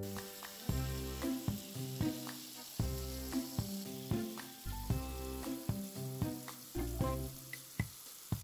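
Kitchen faucet running: a steady hiss of water pouring onto vegetables in a glass bowl in a stainless-steel sink. Background music with a steady beat plays over it.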